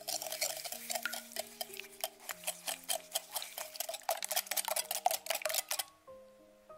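Wire balloon whisk beating raw whole eggs in a glass bowl, its wires clicking rapidly and rhythmically against the glass. It stops about six seconds in.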